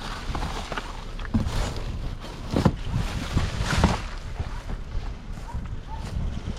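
Wind buffeting the microphone with a steady low rumble, and a few sharp knocks about a second and a half, two and a half and nearly four seconds in.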